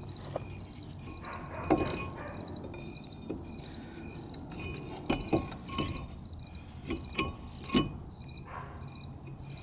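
Flat-head screwdriver levering between brake pad and caliper to push the caliper piston back, giving a few sharp metal clicks and scrapes, the clearest about 2, 5, 7 and 8 seconds in. Insects chirp in a steady high repeating trill throughout.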